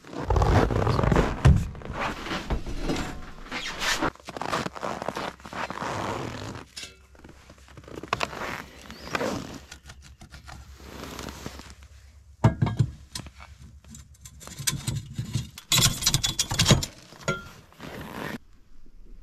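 Irregular clunks, scrapes and rustles of hands-on work at a snowmobile's front bumper, with a metal tow hitch bar being fitted to it. There is a louder cluster of knocks near the end.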